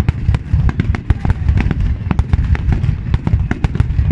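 Fireworks display: aerial shells bursting in rapid succession, several sharp bangs and crackles a second over a continuous low booming rumble.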